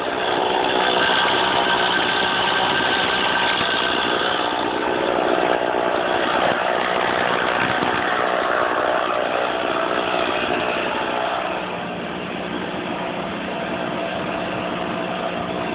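Stihl MS 460 Magnum two-stroke chainsaw idling steadily, not revved, a little quieter over the last few seconds.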